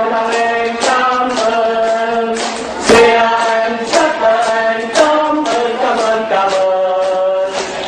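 A group of voices singing in unison, holding each note for about a second, with hand claps keeping time.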